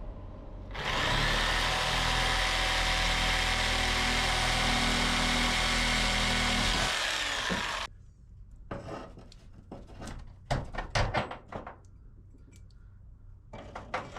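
A power tool's electric motor starts about a second in, runs steadily for about six seconds, then spins down. Scattered light clicks and knocks follow.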